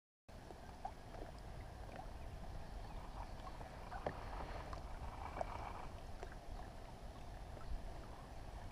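Small waves lapping and splashing lightly against a kayak's hull, with scattered ticks over a low steady rumble; it begins after a brief moment of silence.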